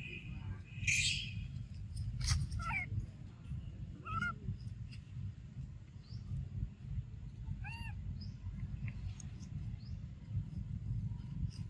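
A baby macaque gives a few short, high squeaky calls that rise and fall in pitch, spaced out over several seconds, over a steady low rumble.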